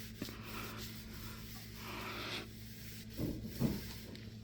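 Microfiber cloth loaded with Bar Keepers Friend cleanser paste being rubbed back and forth over stainless steel along the grain, a soft scrubbing swish in repeated strokes, with a few low bumps about three seconds in.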